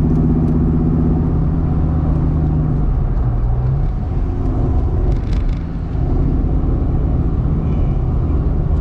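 Dodge Viper's 8.4-litre V10 running steadily on the road. Its pitch changes about three to four seconds in, and the engine sound dips briefly about halfway through before settling back to a steady note.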